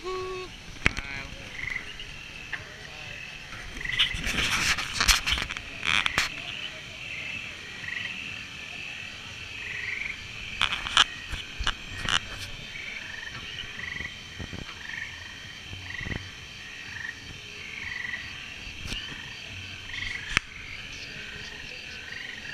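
Frogs croaking: short chirping calls repeating roughly once a second over a steady background hum. A cluster of loud knocks about four to six seconds in, and a few sharp clicks later.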